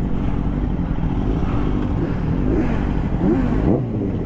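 Motorcycle engines idling steadily at close range, a low even rumble, with some brief wavering sounds in the middle part.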